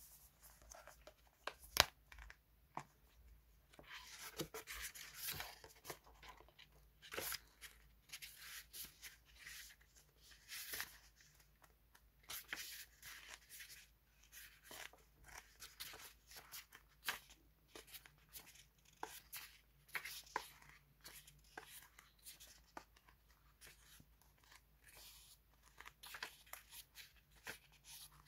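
Sheets of a pad of scrapbooking background paper being turned over one after another by hand: repeated crisp paper rustles and flicks, each page-turn a short crackle.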